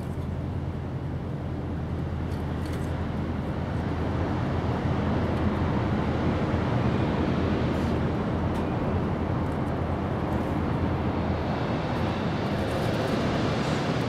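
Steady low engine rumble of distant motor traffic, growing a little louder through the middle.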